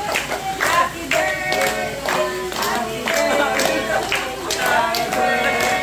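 A group of people singing a birthday song together while clapping along.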